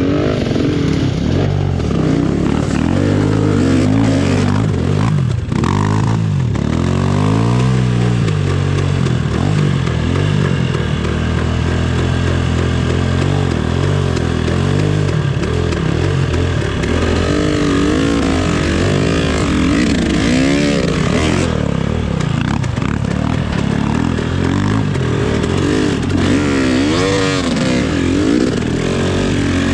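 Off-road trail motorcycle engine running under throttle, its pitch rising and falling again and again as it revs up and eases off.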